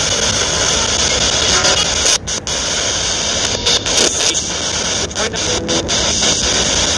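Handheld spirit box radio scanning across stations: a loud, steady rush of radio static broken by short, irregular dropouts.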